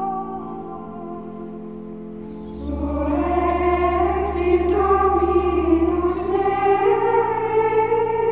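Background music: a choir singing over held chords, the voices swelling in fuller with a low bass about two and a half seconds in.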